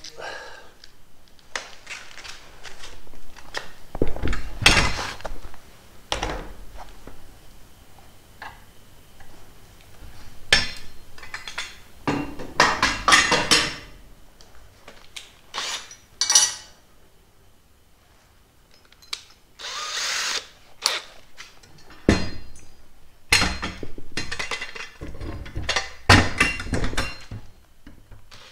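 Irregular knocks, clunks and rattles of a metal mobile-base bracket, its hardware and hand tools being handled against an OSB board, with no steady tool run.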